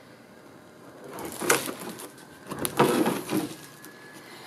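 Cardboard packaging being handled, rustling and scraping in two bursts: one about a second and a half in and a longer one around three seconds in.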